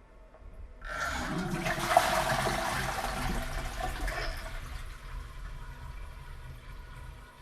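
A toilet flushing: a sudden rush of water starts about a second in, is loudest soon after, then gradually fades as the bowl drains.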